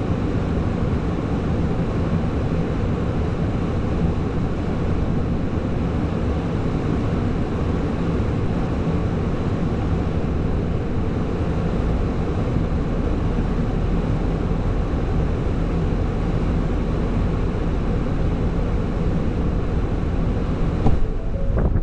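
Heavy truck's diesel engine running steadily under a loud, even rumble of noise, with a couple of knocks near the end.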